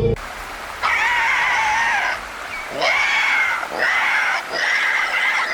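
Recreated dinosaur calls: four high-pitched calls in a row, each about a half to one and a half seconds long with a wavering pitch, starting about a second in.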